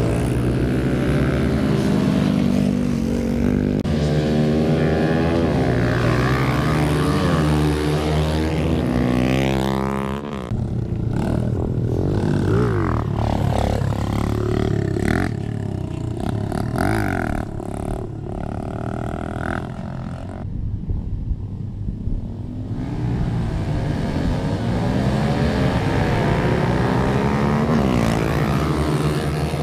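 Several small mini motorcycles running together on a track, their engines revving up and down as they accelerate and back off through the corners. In the middle the sound thins out and one engine holds a steady note for a few seconds before the group's revving picks up again near the end.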